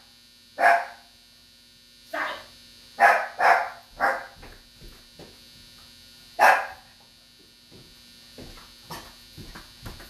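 A dog barking, about six sharp barks at uneven intervals, with a few softer sounds near the end. A steady faint hum runs underneath.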